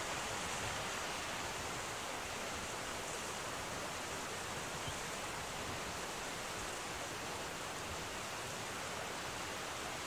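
Steady rush of flowing river water, an even hiss with no distinct events.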